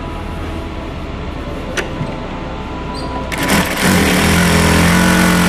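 Jack A2 industrial lockstitch sewing machine starting up a little past three seconds in and stitching at speed, sewing a test seam after its thread-trimmer knife timing has been reset. A faint click comes about two seconds in.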